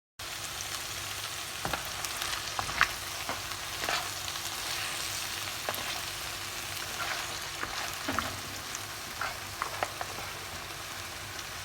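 Onion, peppers and seafood sizzling in hot oil in a pan, with scattered pops and clicks through the steady hiss. The ingredients are being sautéed until their juices cook off and only the oil remains.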